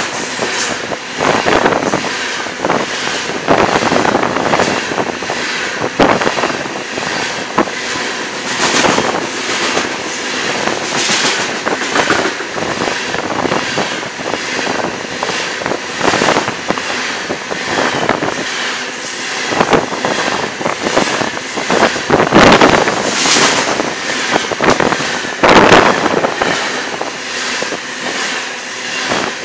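Cars of a loaded coal train rolling past close by: a continuous roar of steel wheels on rail with a steady run of clanks and knocks, and a few louder sharp bangs, two of them a few seconds apart near the end.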